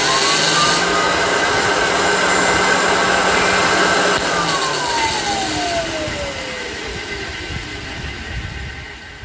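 Motor of a 1923 GE Premier Junior vacuum cleaner with freshly greased bearings, test-run: a whine rises as it spins up in the first second, it runs steadily with a rush of air for about three seconds, then it is switched off and coasts down, the whine falling and fading over about five seconds.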